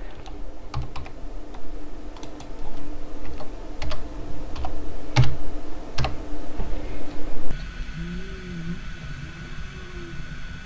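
Computer keyboard being typed on: a run of irregular key clicks that stops about three-quarters of the way through, leaving a faint steady hum.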